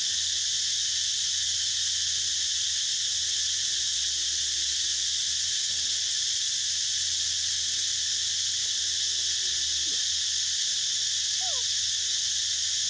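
Steady high-pitched drone of a forest insect chorus, even and unbroken, with a few faint short falling calls about eleven seconds in.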